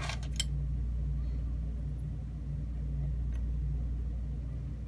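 Steady low background rumble, with a few light clicks from handling the lock cylinder's parts at the very start and one faint tick about three seconds in.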